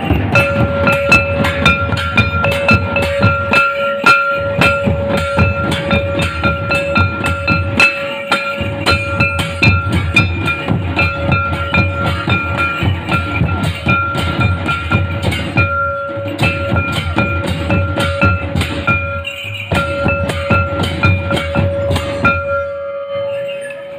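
Tribal drum ensemble: large kettle drums and barrel drums beaten with sticks in a fast dense rhythm, with a metal cymbal, under a steady high held tone that breaks off briefly a few times. The drumming thins out near the end.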